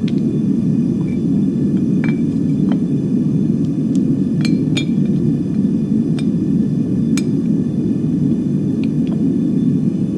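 A small metal-melting furnace's burner running with a steady roar, while a scattering of light metallic clinks sounds as pieces are set on a metal ingot mold.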